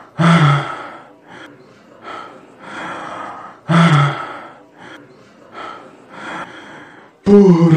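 A man's laboured breathing, with two loud voiced gasps about three and a half seconds apart and quieter breaths between them, performed as the dying gasps of a crucified man.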